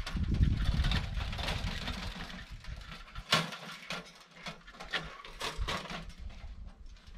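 Wind rumbling on the microphone for the first few seconds. Then a folding sheet-metal camp stove is handled, giving several sharp metallic clinks and knocks, the loudest about three seconds in.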